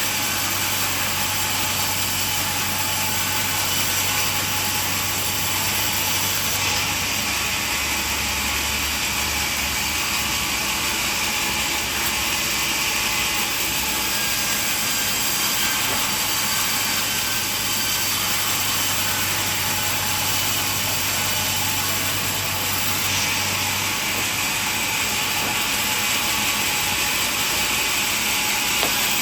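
Sawmill machinery running steadily, a continuous mechanical din with a hiss-like upper band and a low hum that changes pitch a few seconds in and drops out near the end.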